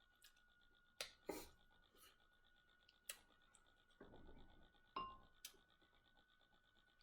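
Mostly near silence, with a handful of faint, scattered clicks and crackles of crab shell being cracked and eaten.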